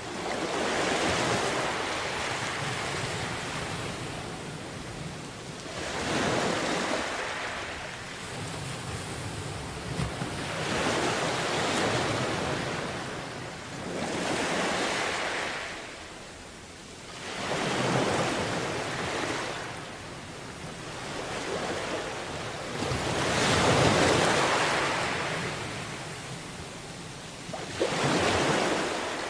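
Sea waves washing onto a beach, the surf rising and falling again every few seconds, with about eight surges.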